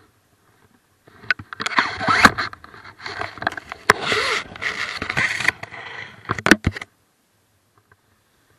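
Rustling and scraping against the body-worn camera, with many sharp knocks, as it swings down into the grass; it cuts off suddenly near the end.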